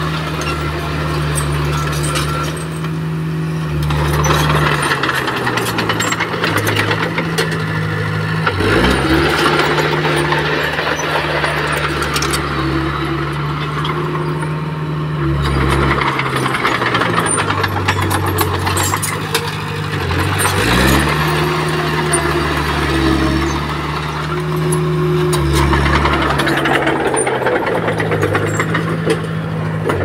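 Komatsu D20P crawler bulldozer's diesel engine running under load, with clanking and rattling from the tracks and stone. About every twelve seconds the engine note dips briefly and climbs back.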